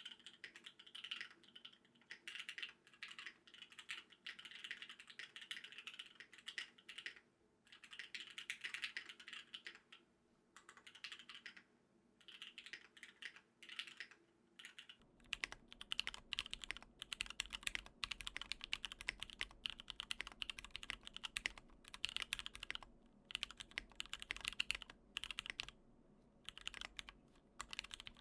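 Typing on a custom 60% mechanical keyboard with lubed SP Star Meteor Orange tactile switches on 63.5 g springs, in an aluminium-plated Tofu60 case with Artifact Bloom keycaps: a clacky run of keystrokes in bursts with short pauses. About halfway through the typing turns louder and deeper.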